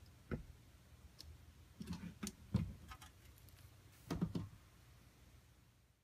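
Scattered handling clicks and light knocks in three groups (about a third of a second in, around two seconds, and around four seconds), over a faint low hum.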